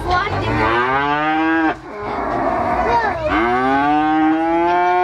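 Cattle mooing: two long calls, the second longer and holding a steady pitch.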